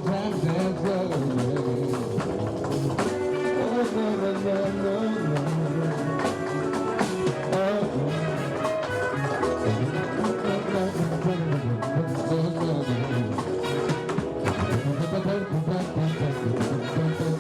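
Jazz music with horns, a moving bass line and drums, with many quick sharp clicks running through it.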